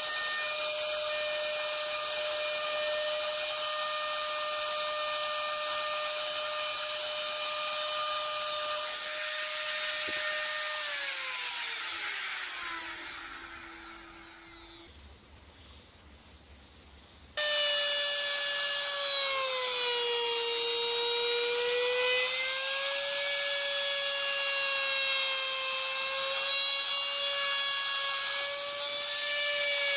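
Compact trim router motor running with a steady high whine. About a third of the way in it spins down, its pitch falling as it winds to a stop. After a few quiet seconds it is abruptly back at full speed, its pitch sagging and recovering as the bit cuts into the wood.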